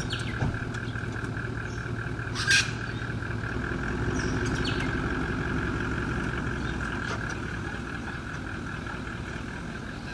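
A 4WD towing a camper trailer pulls away over grass: the engine runs steadily with a sharp clunk about two and a half seconds in, grows louder to a peak midway, then fades as the rig moves off.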